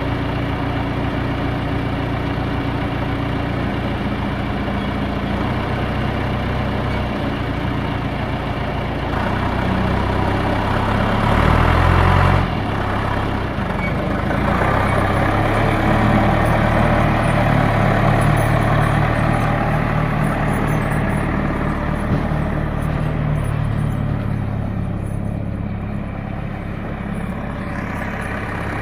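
John Deere 310A loader backhoe's four-cylinder diesel engine running. About nine seconds in it grows louder to a brief peak that cuts off suddenly, then runs at a higher speed for a while and eases back down near the end.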